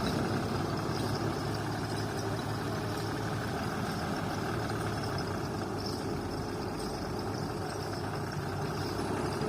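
Heavy diesel engine running steadily at low revs, with no revving or distinct impacts.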